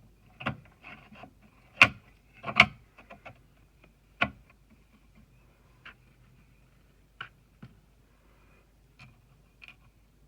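Irregular hard clicks, taps and light scraping from small computer hardware being handled during an M.2 SSD install on a motherboard. Two sharp knocks about two seconds in are the loudest, another comes about four seconds in, and the later clicks are sparser and fainter.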